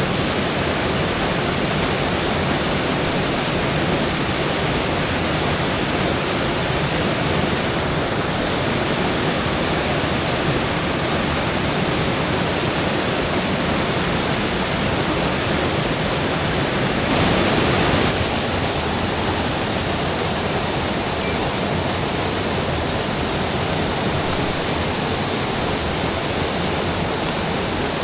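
Rushing water of a mountain headwater stream and its falls, a steady, even roar with a brief swell in level about two-thirds of the way through.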